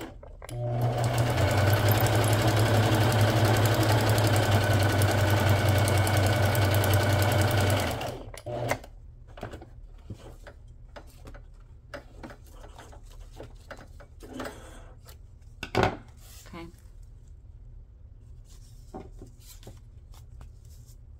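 Electric sewing machine stitching through a strip of paper and fabric, running steadily for about seven seconds after a brief stop at the start, then stopping. After it stops come soft rustling and clicking of the material being handled, with one sharp click.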